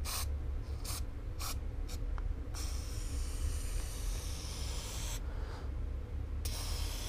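Aerosol can of Motul chain lube spraying onto a motorcycle chain link by link. There are several short puffs in the first two seconds, then one longer spray of about two and a half seconds, and another long spray starting near the end.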